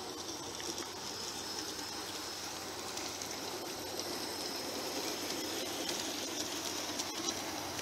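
G-scale model train rolling past on garden-railway track: a steady rumble of wheels on rail with a few faint clicks, getting a little louder as the cars go by.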